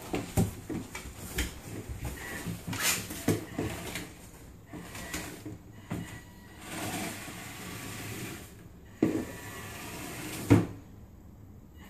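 Scattered clicks, scrapes and bumps on a vinyl kitchen floor: a dog's claws and paws, and a cardboard cereal box shuffled along by a small 1/24 scale RC truck driving under it. Two louder knocks come in the last few seconds.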